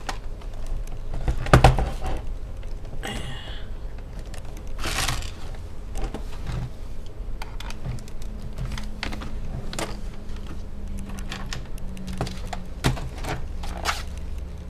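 Knocks, clicks and scrapes of a Toshiba Satellite A665 laptop's plastic case as it is handled and turned over on a desk, with a screwdriver pushed up through a hole in its underside to pop the keyboard loose. There is one heavier thump about a second and a half in.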